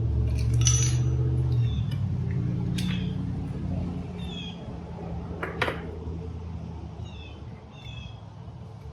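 A few sharp metallic clicks and clinks from hand-working the e-bike's through-axle and parts, over a low steady hum that fades after the first second and a half. Short high chirps come and go throughout.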